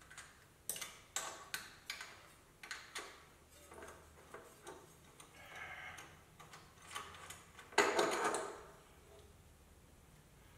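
Irregular metallic clicks and clinks of hand tools working on the turbo and exhaust hardware of a Toyota 2JZ engine, with a louder metal clatter that rings briefly about eight seconds in.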